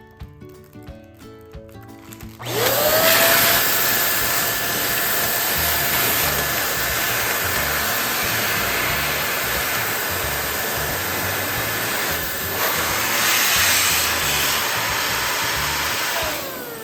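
Electric balloon pump starting up with a rising whine, running steadily for about fourteen seconds as it inflates a balloon, then winding down with a falling whine near the end. Soft background music plays before it starts.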